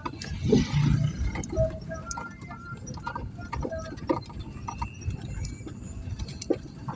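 Strong wind buffeting the microphone: a low, uneven rumble with a hissing gust in the first second, and scattered knocks and rattles throughout.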